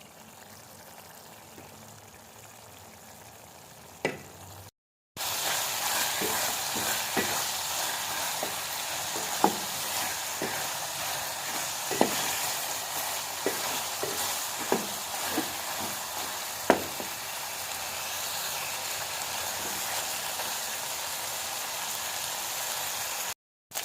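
Chicken frying in oil in a pot (bhunai), a steady sizzle with a spoon clicking and scraping against the pot at irregular intervals as it is stirred. The sizzle comes in suddenly about five seconds in, after a quieter stretch with a single click.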